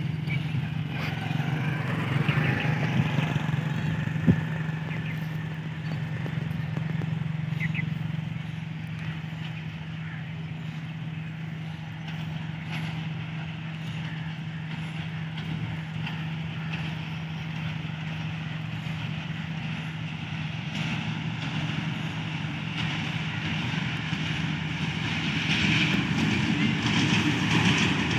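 Diesel locomotive approaching: a steady low engine hum that grows louder and fuller over the last few seconds as it nears. A single sharp click about four seconds in.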